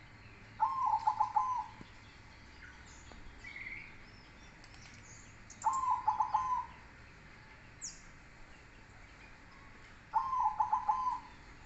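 Zebra dove (perkutut) cooing its song: three phrases of about a second each, roughly five seconds apart, each a short opening note followed by a quick run of pulsed coos.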